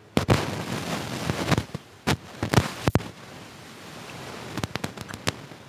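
Close-miked eating sounds: crackly crunching and chewing of fried street food, with a few sharp mouth clicks toward the end.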